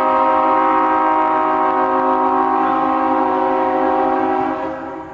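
Multi-chime railroad air horn sounding a steady chord of several notes, which breaks off about four and a half seconds in.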